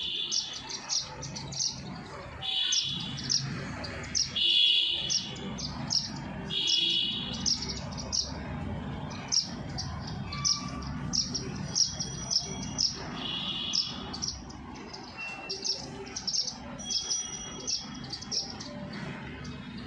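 Wild birds chirping, many short high notes in quick succession, with a few longer, harsher calls mixed in over the first two thirds, over a low steady background noise.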